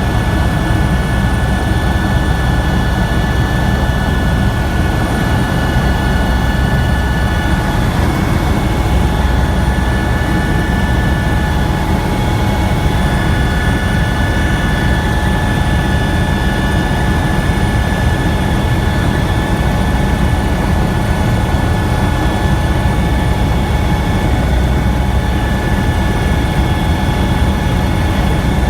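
Helicopter in flight: steady, loud rotor and engine noise with a deep rumble and a constant high whine over it.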